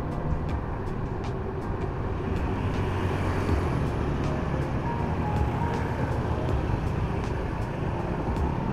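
Wind rushing over the microphone and tyre noise from an electric bike riding along a paved road, with a steady low rumble and light clicks and rattles throughout.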